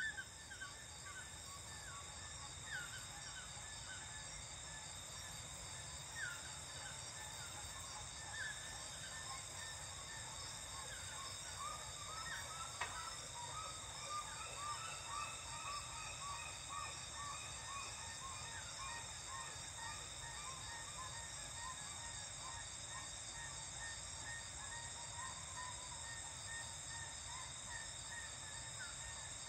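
Dusk animal chorus from tropical forest: many birds calling in short repeated chirps and whistles over a steady high-pitched insect drone. The bird calls are busiest around the middle.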